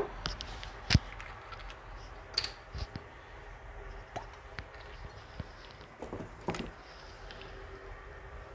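Small glass bottles and their plastic screw caps being handled and set down on a worktop: scattered clicks and knocks, the sharpest about a second in and a small cluster about six seconds in.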